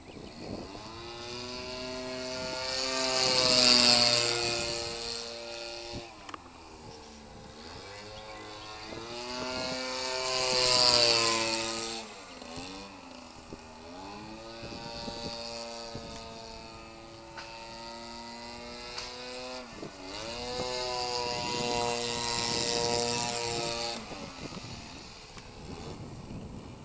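Giant-scale RC airplane's 25cc gas engine, converted from a Cub Cadet (Stihl) string trimmer, running in flight. Its note swells and bends in pitch as the plane makes passes: loudest about four seconds in and again about eleven seconds in, with a third, longer pass near the end.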